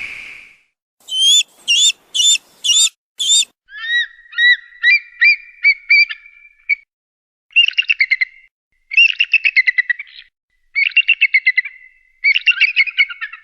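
Bird of prey calling: five short, separate high notes, then a run of chirps that quicken, then four bursts of rapid, high chattering.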